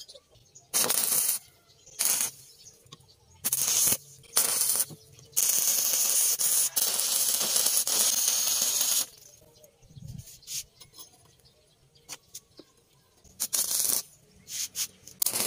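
Stick (arc) welder crackling and hissing as steel pieces are welded onto a steel sprocket. There are several short bursts, then one longer run of about three and a half seconds, then more short bursts near the end.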